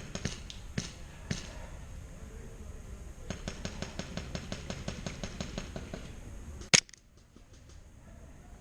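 Airsoft guns firing: an even run of rapid shots, about seven a second, from an automatic airsoft rifle, with scattered single shots. Near the end there is one loud sharp crack close by.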